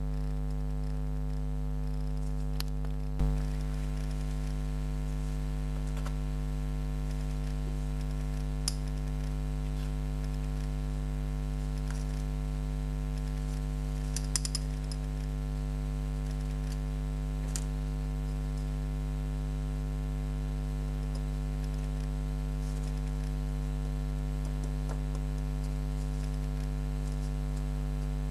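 Homemade Geiger counter clicking at irregular, random intervals, roughly a click every few seconds with a quick cluster of several about halfway through; each click is a detected radiation count. Under it runs a steady low electrical hum.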